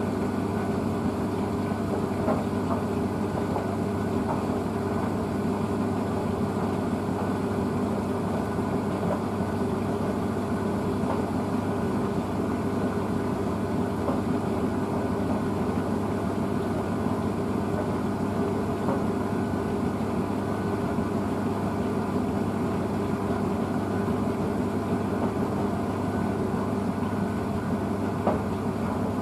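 Blomberg WNF9448 front-loading washing machine in its final spin, set to 1200 rpm: the drum turns at high speed with a steady motor hum and whir.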